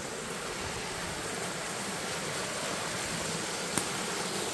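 Creek water pouring over a rock ledge into a shallow pool as a small waterfall, a steady splashing rush. One brief click sounds near the end.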